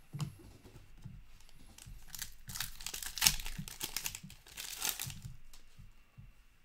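A foil hockey-card pack wrapper being torn open and crinkled by hand, a dense crackly rustle that swells about two seconds in and dies away near the five-second mark. It follows a few soft handling sounds.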